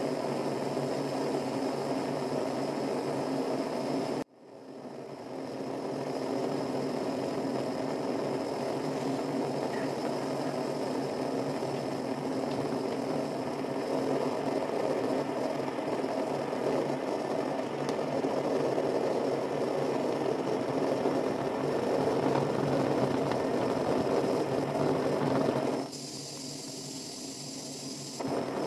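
Gas torch flame burning with a steady rushing noise. It cuts out abruptly about four seconds in and comes back up over a second or two. Near the end it turns quieter and thinner for a couple of seconds before rising again.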